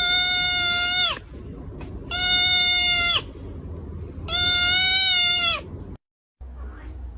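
Three long animal cries, each held at one level pitch for about a second, with pauses of about a second between them.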